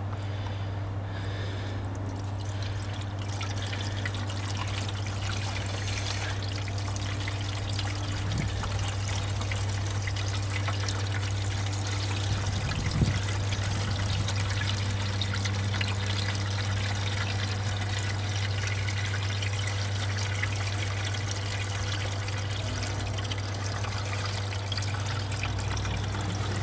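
Windshield washer fluid pouring steadily from a gallon jug into the plastic filler neck of a 2006 Grand Caravan's washer fluid reservoir, a continuous trickling splash.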